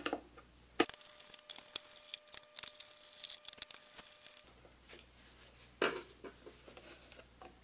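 Light clicks and taps of a screwdriver and gloved hands working on a winch's plastic relay box cover as its screws are undone and the cover is lifted off, with one louder knock about six seconds in.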